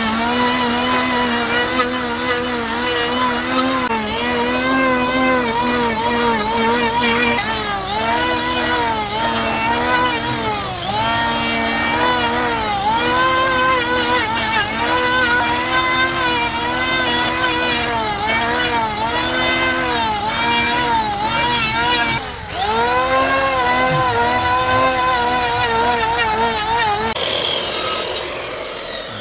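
Electric woodworking power tool running and cutting wood, its motor pitch dipping and recovering about once a second as it bites under load. Near the end it is switched off and winds down.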